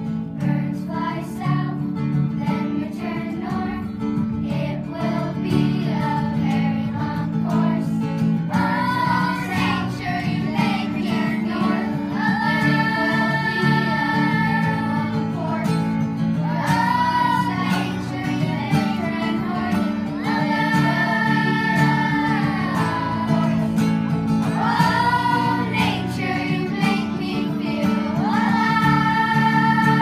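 A group of children singing a song together, accompanied by a strummed acoustic guitar. About nine seconds in, the singing moves from quick notes to long held notes.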